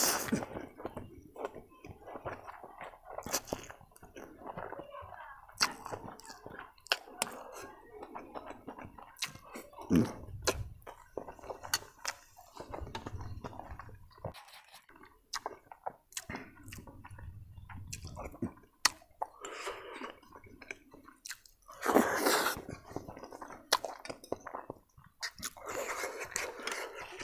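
A person eating noodles close to the microphone: wet chewing with many mouth clicks and lip smacks, a loud noodle slurp at the start, and two more loud bursts near the end.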